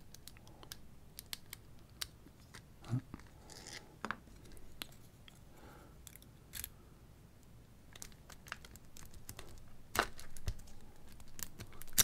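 Small metal clicks and scratching of a lock pick worked in the keyway of a Master Lock 318DLH padlock, raking across the pins against a tension tool, with a sharper click about ten seconds in.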